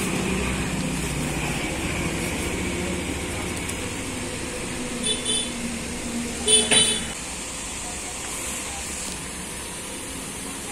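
Street traffic noise with a vehicle engine running, then short horn beeps in two quick pairs about five and six and a half seconds in.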